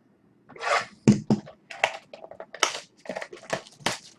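Trading-card pack wrapper being torn open and crinkled: a run of irregular crackles and rustles.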